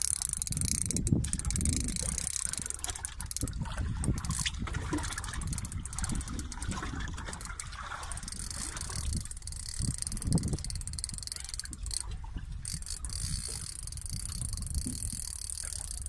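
Wind on the microphone over the low rumble of a small fishing boat at sea, with a hiss that comes and goes and a few faint knocks.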